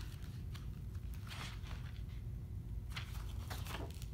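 Paper rustling and soft handling noise as a picture book is opened and its pages are turned, in several short rustles, over a low steady room hum.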